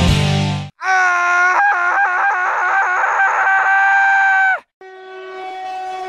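Train air horn: several short chord blasts, then one long held blast that cuts off suddenly, followed by a second, lower horn chord swelling in near the end. Rock guitar music ends just before the horn.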